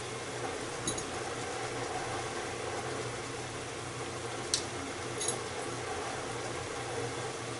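A steady mechanical hum with a hiss under it, and three sharp clinks of a metal spoon against a small bowl, the loudest about halfway through.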